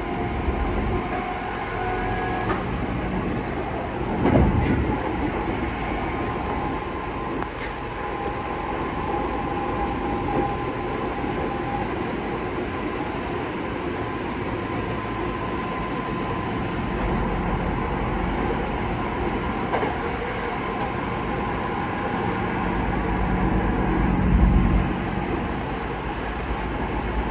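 Hankyu resistor-controlled electric train running between stations: a steady running noise of motors and wheels on the rails, with louder swells about four seconds in and near the end.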